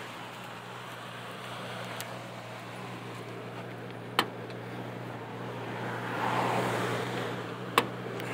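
Steady low hum of an idling car engine. Two sharp clicks come about four seconds in and near the end, and a broad rush of noise swells and fades in between.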